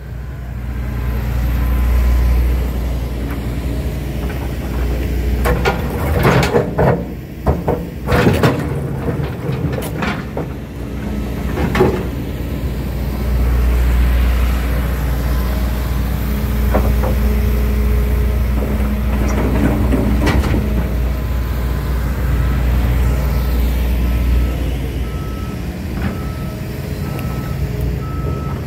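Hitachi Zaxis 200LC excavator's diesel engine running and rising and falling with the hydraulic work. Several sharp clanks and bangs come from the steel bucket handling broken concrete and asphalt slabs. A backup alarm beeps steadily over the last few seconds.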